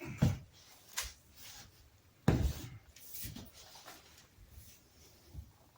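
A few scattered knocks and clatters of things being handled, the loudest about two seconds in.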